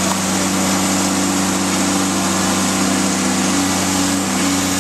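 Engine of demolition machinery running steadily at an even speed, a constant low drone.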